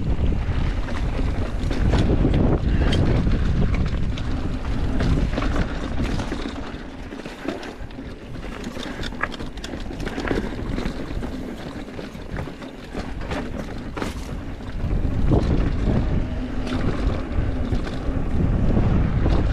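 Wind buffeting the microphone of a mountain-bike rider's camera, with scattered clicks and knocks from the bike rattling over rocky dirt singletrack. The wind rush eases for a stretch in the middle and picks up again about fifteen seconds in.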